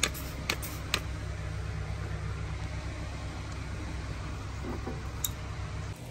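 Steady low mechanical hum of a running machine, with a few sharp clicks in the first second and one more near the end.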